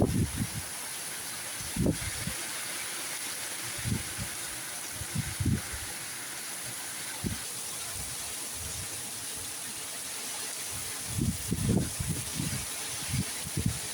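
Heavy rain falling in a steady hiss, with short low thumps buffeting the microphone every few seconds, bunched together about eleven to thirteen seconds in.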